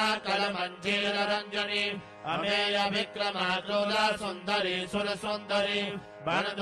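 Devotional mantra chanting: a voice reciting verses on a mostly steady pitch, phrase after phrase, with short pauses about two seconds in and near the end.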